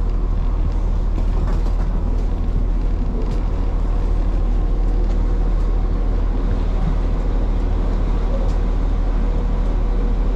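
Steady low rumble and hum inside a stationary diesel multiple-unit train carriage, its engines idling at the platform with the doors open.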